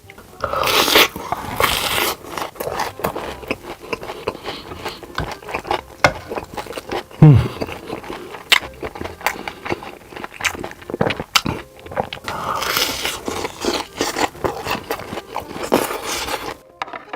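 Close-miked eating sounds: irregular crunching, chewing and biting with scraping and crackling. There is a brief falling squeak-like tone about seven seconds in.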